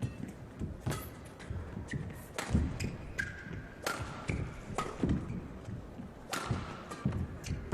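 Badminton rally: sharp racket strikes on the shuttlecock, irregularly spaced, mixed with players' footfalls thudding and shoes squeaking on the court.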